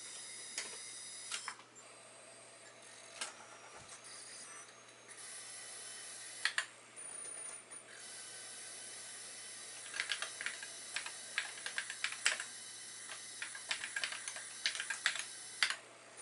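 Keys typed on a computer keyboard: a few scattered presses, then a quick run of keystrokes in the last several seconds, over a steady high electronic whine.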